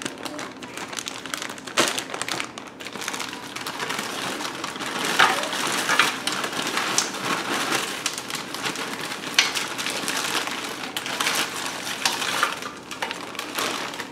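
A plastic bag of frozen broccoli crinkling as it is opened and handled, with the frozen florets rattling as they are poured out into the cooking pot.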